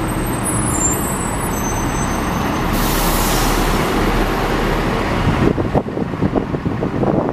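A bus running close by, with a loud hiss of its air brakes about three seconds in that lasts over a second.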